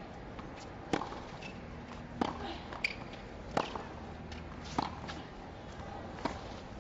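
Tennis rally: rackets strike the ball back and forth in sharp pops about every second and a bit, with the ball bouncing on the hard court between strokes, over a steady stadium background.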